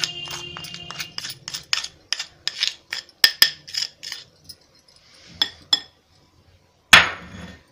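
Metal spoon clinking against a glass bowl, about four quick taps a second, while chilli powder is knocked off the spoon into the bowl. Two more clinks follow, then one louder clatter near the end.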